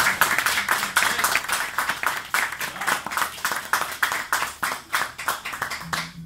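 A small audience clapping by hand, dense at first, then thinning to scattered claps and dying away near the end.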